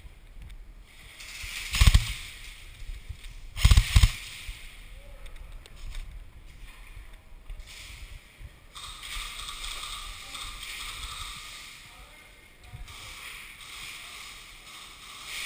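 Three loud knocks, one about two seconds in and two close together near four seconds, over rustling movement noise that grows from about nine seconds in.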